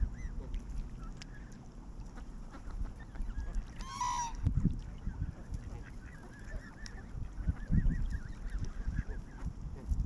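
Canada geese honking, with one loud honk about four seconds in and a run of softer calls a few seconds later, over a low rumble.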